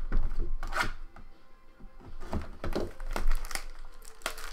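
Trading-card packs and cards handled close to the microphone: irregular taps and clicks, about eight in all. Faint music plays underneath.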